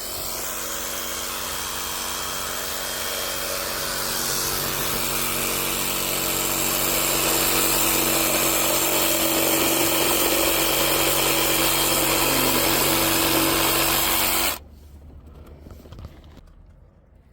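Power saw cutting through a 3-inch PVC water main pipe, running steadily, growing louder a few seconds in and stopping abruptly about 14 seconds in.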